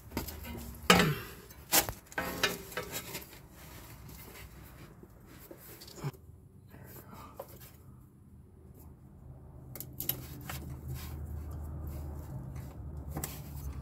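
Scattered clicks, taps and rubbing of metal on metal from hand tools and parts, as a solenoid is unbolted and pulled off a Honda V6's oil filter adapter housing. A low steady hum comes up in the second half.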